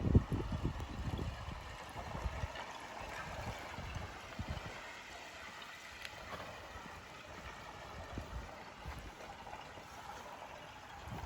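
Small waves lapping and sloshing against the ice edge of a partially frozen lake, in irregular low splashes. The loudest slosh comes right at the start, and softer ones follow.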